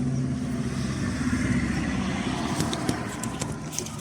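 A motor vehicle's engine running with a steady low hum that fades away after about two and a half seconds, with a few light clicks near the end.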